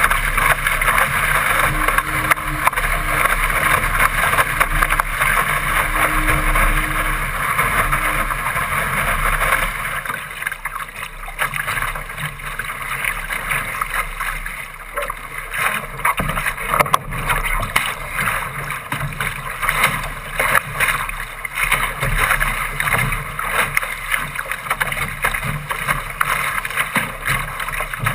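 Water rushing and splashing along the hull of a Laser sailing dinghy driving fast through chop, mixed with wind on the microphone. A dense, steady rush for about the first ten seconds gives way to quieter, uneven slaps and splashes.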